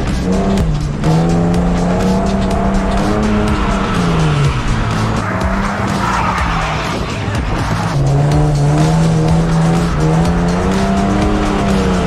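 Ford AU Falcon drift car's engine revving hard at high rpm, its pitch holding, dropping and climbing again as the throttle is worked through a slide on a wet track, with tyre noise under it. For a few seconds in the middle the engine tone gives way to a rushing noise.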